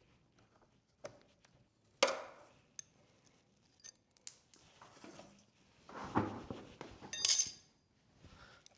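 Scattered metallic clicks and knocks of hand tools and exhaust hardware as a motorcycle exhaust mounting bracket is undone, with a sharp knock about two seconds in and a bright ringing metal clink a little after seven seconds.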